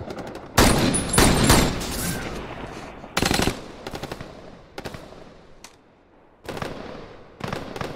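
Film shootout gunfire: a rapid burst of shots about half a second in, more shots a few seconds later, then single shots, each with a fading echo, and further shots near the end.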